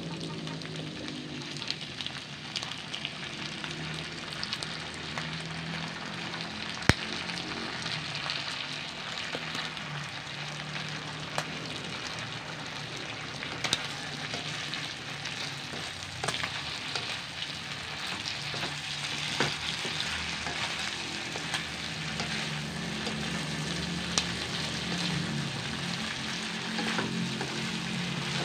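Sliced meat and liver sizzling in a steel wok as a wooden spatula stirs the freshly added oyster sauce through, with scattered sharp clicks.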